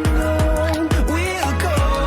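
Background music: a song with a steady kick-drum beat, heavy bass and a vocal melody.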